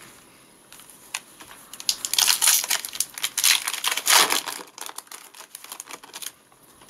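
Foil wrapper of an Upper Deck trading card pack being torn open and crinkled by hand. It crackles from about two seconds in, loudest twice, then tails off into lighter crinkles.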